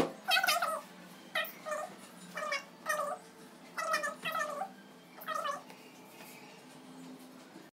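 Cat meowing repeatedly: about eight short meows, several in quick pairs, stopping a little over two-thirds of the way in.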